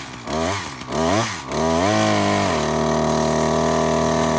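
Two-stroke chainsaw engine revved in quick throttle blips, then opened up and held at a steady high rev.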